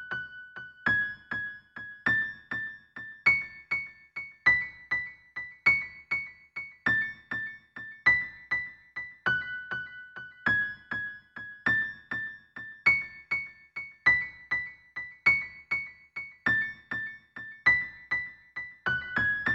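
Instrumental music: a high, simple melody of single piano-like keyboard notes, a few a second, each struck and fading quickly, in a repeating pattern.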